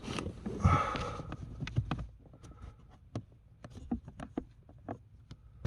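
Handling noise from working on parts behind a car's glove compartment: a rustle and scrape for about two seconds, then scattered light clicks and taps.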